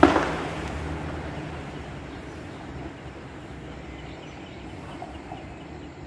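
Outdoor road traffic: a vehicle's low engine hum fading away over the first second or two into a steady traffic hiss. A short sharp knock at the very start is the loudest sound.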